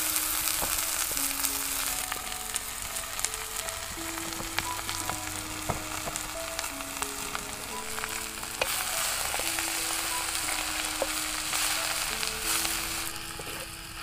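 Sunsunia (water clover) greens sizzling loudly as they fry in hot mustard oil in an earthenware pan. A wooden spatula stirring through them adds short scraping ticks.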